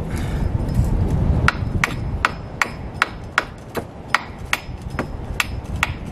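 A hammer driving a nail into wood with a quick, steady run of strikes, about three a second. The strikes start about a second and a half in.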